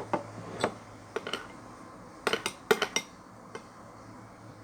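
Irregular light clinks and taps of hard objects against a bowl while slime ingredients are worked, about a dozen, bunched together a little past the middle.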